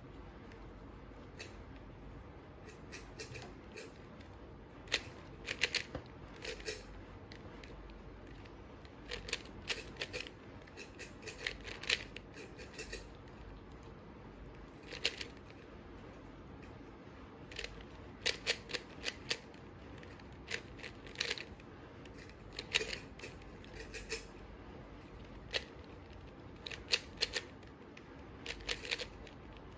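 3x3 puzzle cube being turned fast by hand: bursts of quick plastic clicks and clacks as the layers snap round, separated by short pauses.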